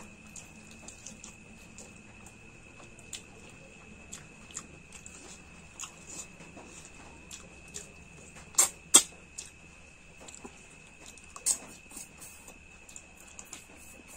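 Close-miked chewing and mouth sounds of someone eating mutton curry: scattered small wet clicks and smacks, with two sharp louder smacks just past the middle and another a few seconds later.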